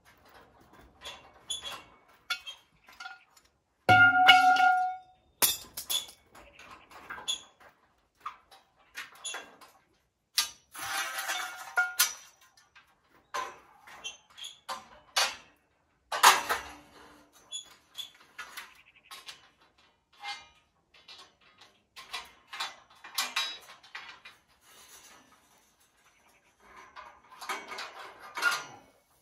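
Metal scaffolding parts being handled and fitted: irregular clanks, knocks and clinks, with one loud ringing clang about four seconds in.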